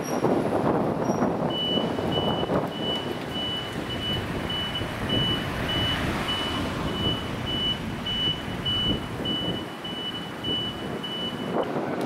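An electronic warning beeper sounding a single high tone a little over twice a second for about ten seconds, over the noise of street traffic and a bus.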